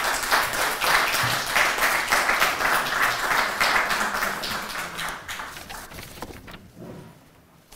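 Audience applauding, a dense patter of hand clapping that holds for about five seconds and then dies away.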